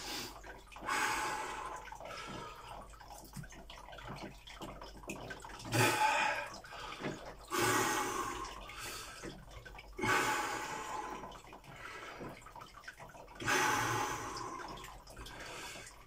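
A man taking slow, heavy breaths while sitting in ice water, about five long breaths a few seconds apart: the deep breathing he forces against the body's urge to pant in the cold. Water laps and drips in the tub between breaths.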